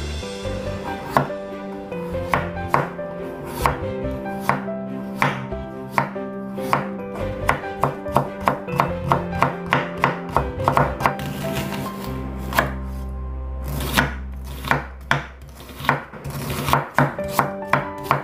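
Santoku knife chopping on a bamboo cutting board: quick, uneven knife strokes cutting radish into matchsticks and slicing onion, with a short break about two-thirds of the way through.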